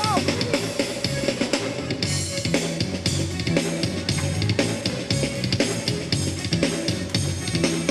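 Live band playing an instrumental groove: drum kit with bass drum, snare and cymbals over bass and guitar, keeping a steady beat.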